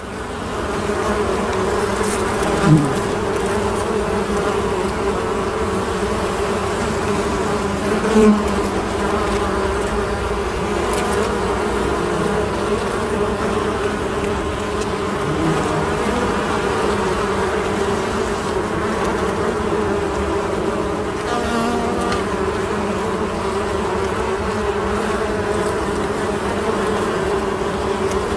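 Many honeybees buzzing together in a steady, dense hum. Single bees buzz close past and are briefly louder about three seconds and eight seconds in, the pitch dropping as the first one passes.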